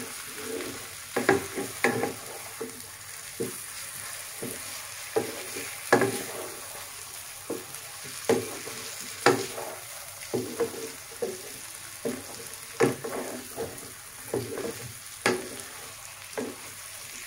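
Chicken drumsticks being stir-fried (kosha) in a thick onion-tomato masala: a steady sizzle with irregular knocks and scrapes as the pieces are stirred and turned in the pan.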